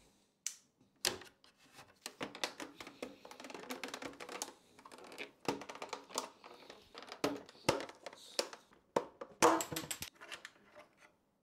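Plastic housing of a BMW 6WB digital instrument cluster being pried apart by hand: a run of irregular clicks, creaks and crackles, with a louder cluster of snaps about nine and a half seconds in.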